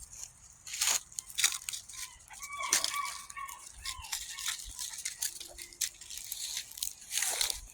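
Dry leaves and forest litter crunching and rustling in irregular crackles as puppies romp and scuffle through them.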